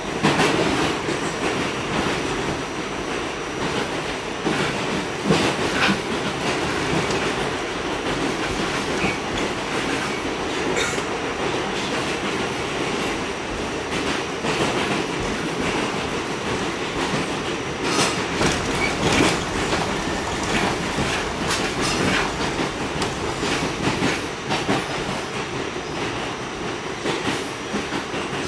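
Interior of an R46 subway car running between stations: a steady ride rumble with the wheels clicking over rail joints every second or so.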